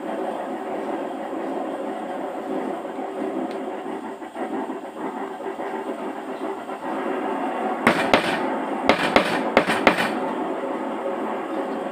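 A steady background drone, with a quick run of about six sharp wooden knocks near the end as the pieces of a wooden T joint are handled and pressed together.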